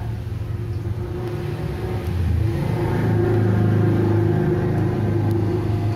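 A motor vehicle engine running with a steady hum, louder from about two seconds in.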